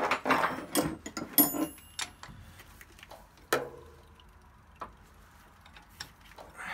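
Metal hand tools (a ratchet with extension and crow's-foot wrench) clinking and knocking against the fuel-line fittings of a diesel engine. A cluster of sharp clicks comes in the first two seconds, one with a short metallic ring, another ringing knock about halfway, then only sparse light ticks.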